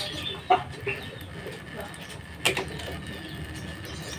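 Two sharp metallic clinks of hand tools against engine parts, about half a second in and again about two and a half seconds in, over a steady low hum.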